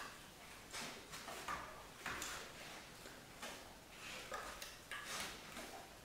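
A Hovawart taking food treats from a hand and shifting its paws on a rubber training platform: soft, irregular clicks and rustles, a little under two a second.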